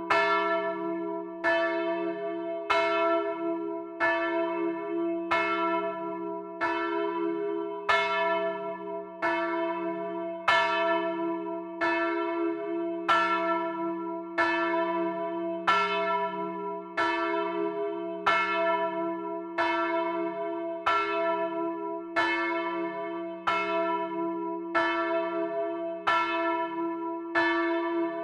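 A single large church bell swinging and tolling steadily, struck about every 1.3 seconds with the same pitch each time. Its deep hum rings on continuously between the strokes.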